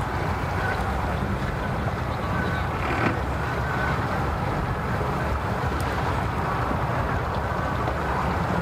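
Steady low rumble of idling vehicle engines at a boat ramp, with faint higher tones and a few light knocks.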